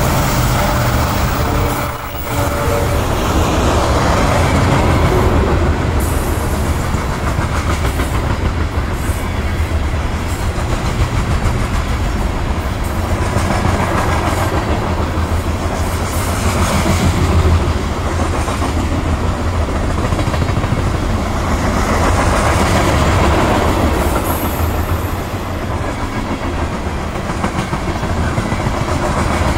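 Long BNSF freight train of open-top freight cars rolling past at speed: a steady loud rumble of steel wheels on rail with rhythmic clickety-clack over the rail joints.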